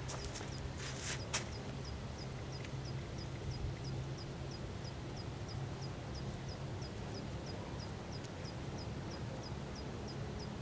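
Outdoor lakeside ambience: a short high chirp repeats evenly about three times a second over a steady low rumble, with a couple of brief rustling bursts about a second in.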